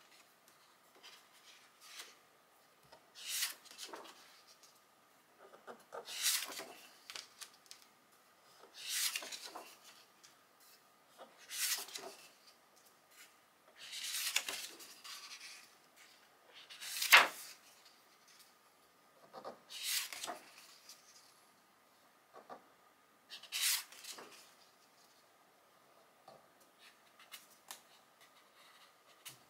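Paper pages of a hardcover photobook being turned by hand, one after another: about eight paper swishes roughly three seconds apart, with lighter rustling of the pages in between.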